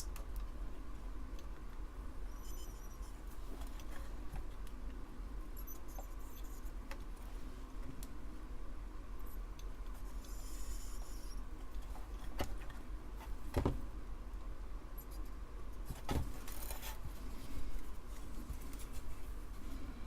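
Desoldering tool working at solder joints on a circuit board: small clicks, taps and scrapes with a few short high squeaks, over a steady low hum. Two sharper clicks come about two-thirds of the way through.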